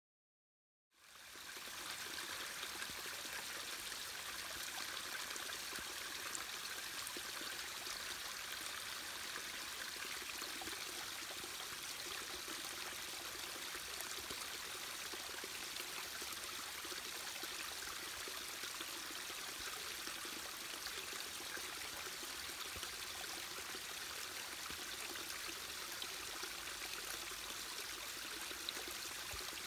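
Runoff water trickling off a sandstone ledge and splashing onto the rocks below: a steady, even splashing that starts about a second in.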